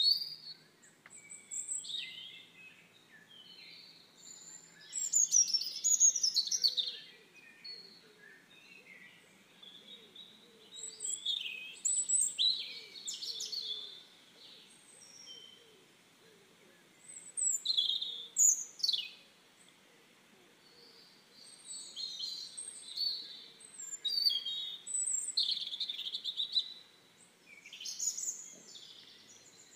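Songbirds singing: bursts of varied high chirps and quick gliding whistles every few seconds, with short pauses between.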